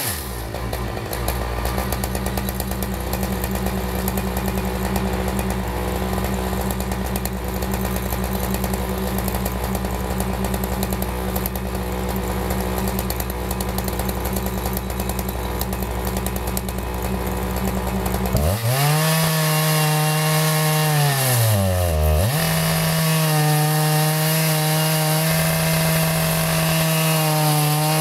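Gas chainsaw running under load while milling through a maple log, the engine holding a steady note. About two-thirds of the way through, its pitch drops sharply and climbs back, dips once more, then holds steady again.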